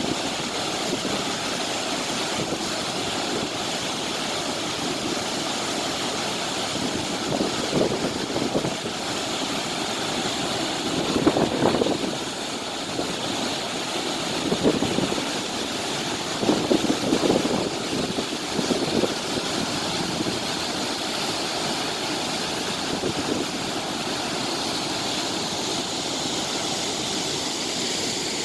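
Steady rushing, churning noise of water-pushing propellers driving canal water, with several louder swells.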